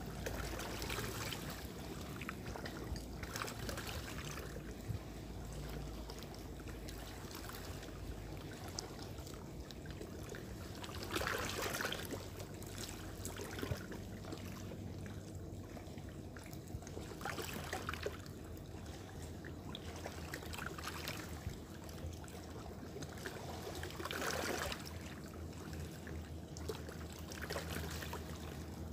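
Shallow sea water lapping and washing among shoreline rocks, a steady trickling wash with a louder surge every several seconds.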